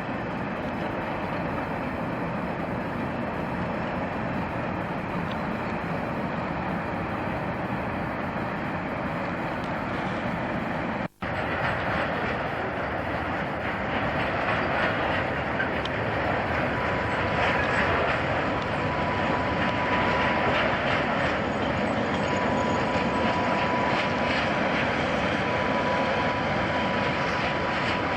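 A train running past with a steady noise; after a brief cut-out about a third of the way in it gets louder, and a thin steady high whine comes in around the middle and holds.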